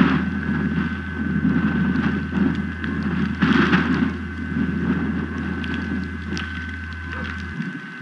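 Gusting wind buffeting an outdoor webcam's microphone, surging hardest at the start and again about three and a half seconds in. A steady high electrical whine runs underneath.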